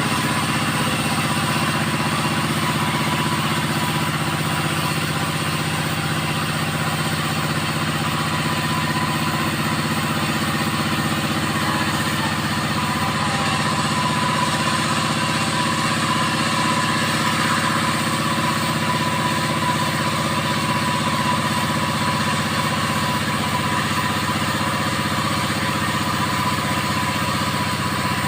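Two-stroke 5800-type chainsaw with a 22-inch bar running steadily at high speed, ripping a teak log lengthwise.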